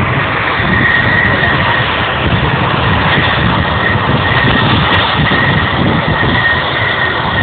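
BAE Hawk jet trainers' turbofan engines running as the aircraft taxi along the runway: a steady jet roar with a constant high-pitched whine.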